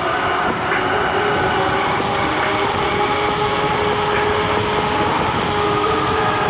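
Nanrobot LS7+ electric scooter riding at speed: a steady whine of several held tones from the hub motors over loud wind and road noise.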